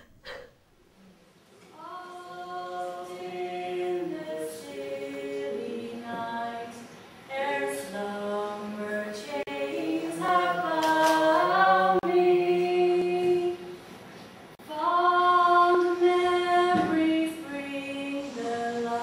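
A group of voices singing together in harmony, in phrases of long held notes, starting after a brief hush.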